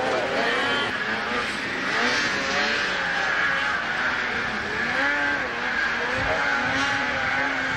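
Two-stroke racing snowmobile engines revving, their pitch rising and falling again and again as the sleds race by.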